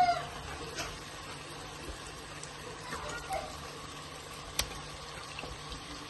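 A cat's meow trails off right at the start, then a faint steady hiss with a few sharp clicks, one louder click in the middle.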